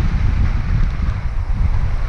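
Wind noise from the airflow over a harness-mounted camera's microphone during a paraglider flight: a loud, steady low rumble.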